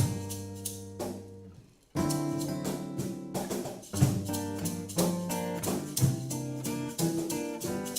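Music: strummed guitar chords with drums keeping a steady beat. The music fades out briefly and comes back in about two seconds in.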